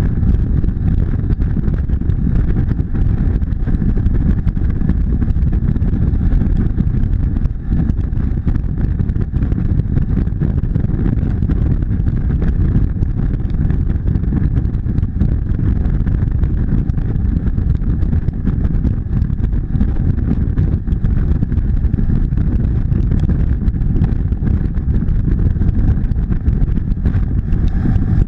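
Motorcycle riding at a steady highway speed: a heavy, steady wind rumble on the camera's microphone with the engine running underneath.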